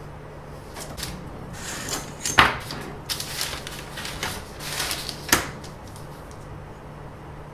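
Handling noise: rustling and light clicks, with two sharp knocks about two and a half and five and a half seconds in.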